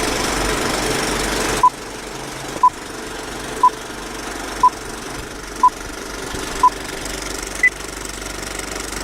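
Electronic countdown beeps: six short beeps of one pitch, a second apart, then a single higher beep, over a steady background hiss that is louder for the first second and a half.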